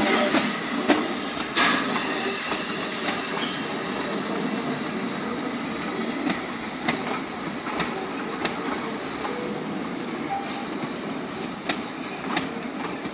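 F13 steam locomotive and its carriages passing and pulling away, louder at first and then easing off. There is a brief loud hiss about one and a half seconds in, then irregular clicks of the wheels over the rail joints as the coaches roll by.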